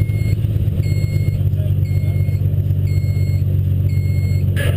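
Race car engine idling steadily, heard from inside the stripped, roll-caged cabin, with a faint high beep repeating about once a second. A sharp click comes near the end.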